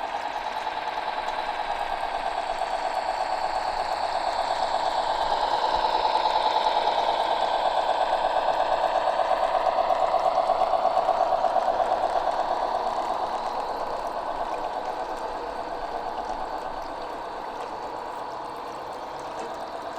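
Small live-steam garden-railway locomotive running, its exhaust beating in fast, even chuffs that grow louder through the middle and fade away near the end as it passes.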